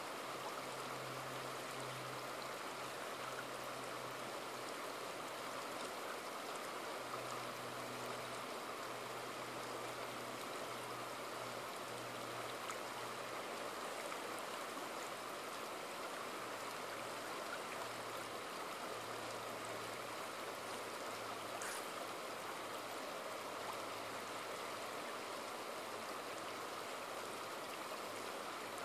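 Shallow, rocky river rushing steadily over cobbles and boulders.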